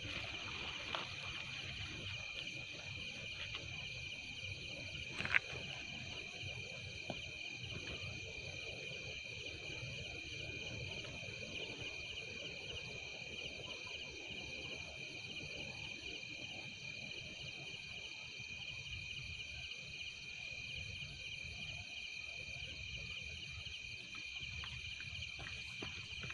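Steady high-pitched trilling of crickets and other night insects in chorus, with a single sharp click about five seconds in.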